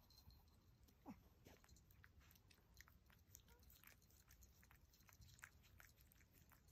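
Faint wet licking by a chocolate-and-tan Chihuahua on a person's face: a scatter of small, soft mouth clicks and smacks.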